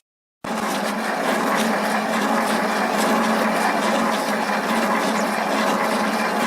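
Manual centre lathe running: a steady, loud machine noise with a constant hum. It starts abruptly about half a second in.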